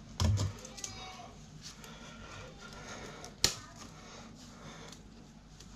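Parts from a stripped fuse board being handled on a workbench: a heavy knock about a quarter second in, a few light clicks and taps, and one sharp click about three and a half seconds in.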